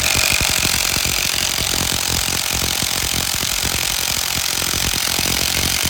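TVS Ntorq 125 scooter's single-cylinder engine running steadily, with a busy, rapid mechanical clatter. It is being listened to for a noise that is traced to a loose bolt on the starter one-way clutch behind the magneto rotor.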